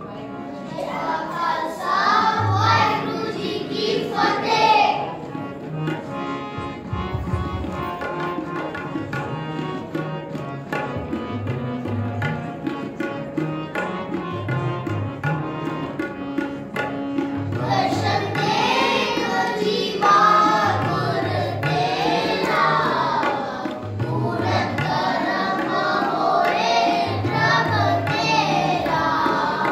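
Sikh kirtan: a ragi singing with harmonium and tabla. The voice sings for the first few seconds, drops out for a stretch of harmonium and tabla alone, and comes back about 18 seconds in.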